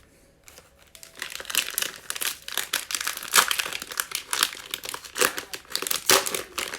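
Cellophane and plastic wrapping of trading-card packs crinkling as they are handled and pulled out, starting about half a second in as a dense, irregular crackle.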